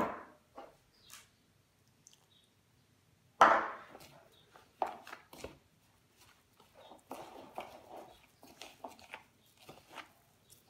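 Hands kneading and squeezing moist almond meal, sugar and orange blossom water in a plastic bowl: soft, irregular crunching and rustling from about four seconds in. Before it, after a few near-silent seconds, a single sharp knock about three and a half seconds in is the loudest sound.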